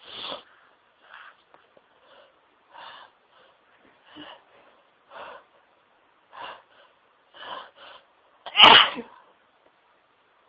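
A person's sneezing fit set off by dust: a string of short, quieter sneezes about once a second, then one loud sneeze near the end.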